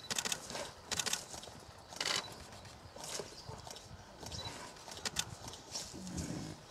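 Camera shutters firing in short bursts, sharp clicks repeating every second or so over a low background rumble.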